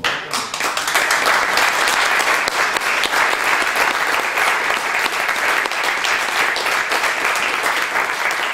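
Audience applauding: dense, many-handed clapping that starts suddenly and holds steady.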